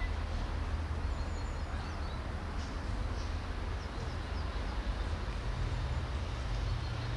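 Outdoor ambience: a steady low rumble, with faint, short, high bird chirps scattered through the first few seconds.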